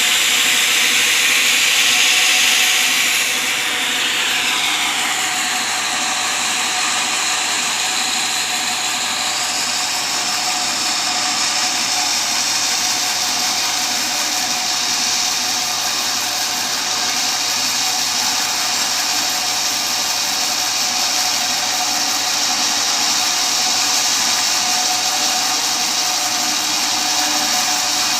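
Sawmill blade cutting teak timber: a loud, steady saw noise, a little louder and brighter for the first three seconds before it settles into an even run.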